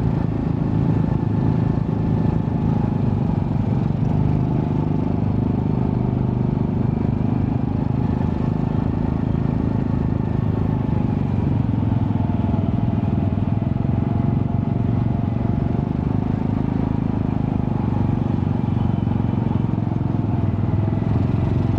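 Honda Astrea Prima-based 110cc single-cylinder four-stroke motorcycle engine running steadily through a custom underbelly exhaust with a resonator. It gives a deep, even pulsing note with small shifts in engine speed.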